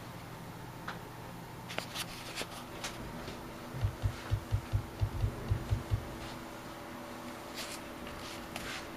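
Steady low hum from the computer setup, with a few faint clicks early on. About four seconds in, a quick run of about ten dull, low thumps lasts roughly two seconds.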